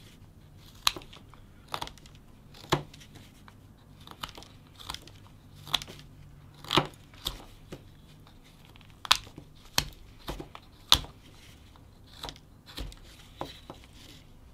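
Whittling knife slicing thin shavings off a wooden block in short, crisp cuts, about twenty at an uneven pace, as the top of the carving is rounded over.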